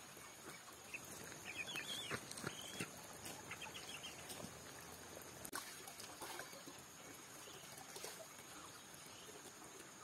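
Chickens clucking and calling faintly as they feed, with a cluster of short high calls between about one and four seconds in and scattered small clicks.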